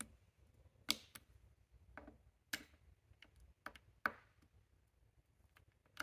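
Fingers and a small seating tool clicking and tapping against the plastic pressure-switch plate of a transmission control module as new switch membranes are pushed into place: a handful of short, sharp, irregular clicks.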